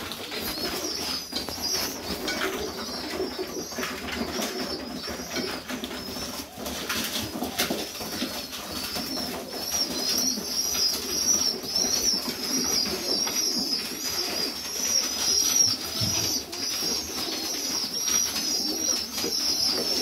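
Serbian Highflyer pigeons cooing, with a continuous high, wavering chirping over them that grows louder about halfway through.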